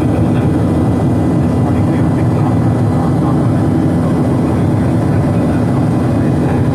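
Steady, loud cabin noise inside a Boeing 737-800 airliner: a low, even rumble of engines and airflow with a steady hum over it.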